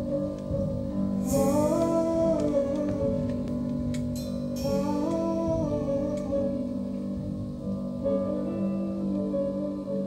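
Instrumental music from a live theatre band: a slow melody rising and falling in three phrases over held notes.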